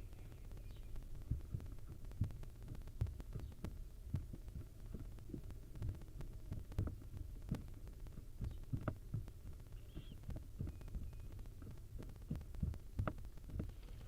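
Irregular soft thumps and knocks, like owls shifting and stepping against the floor and walls of a wooden nest box, over a steady low hum.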